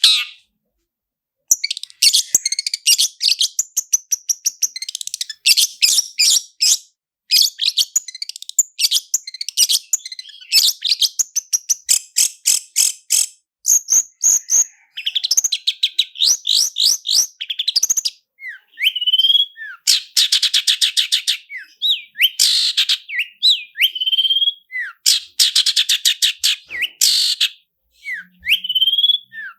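Long-tailed shrike (cendet) singing fast rolling song: dense trains of rapid, repeated high chattering notes, broken by short rising and falling whistled slurs in the second half. Near the start and near the end the song stops briefly.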